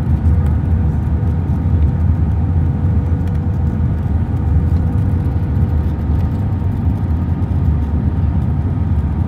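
Steady low roar inside the cabin of an Airbus A320 on descent for landing: engine and airflow noise heard from a window seat over the wing, with a faint steady tone that fades out about two-thirds through.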